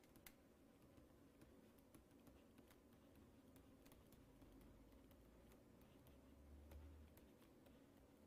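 Near silence with faint, irregular clicks and taps of a stylus on a tablet screen as notes are handwritten. A faint low hum swells briefly about six to seven seconds in.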